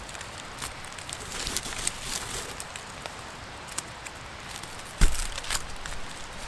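Gloved hands working a tarp guyline around a tree trunk: rustling and light crackling of cord and dry leaves, with scattered small clicks and one louder thump about five seconds in.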